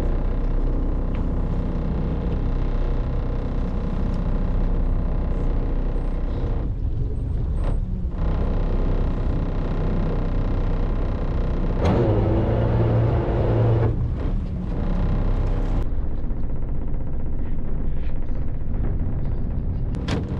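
Fishing boat's engine running with a steady low rumble. The sound changes abruptly several times.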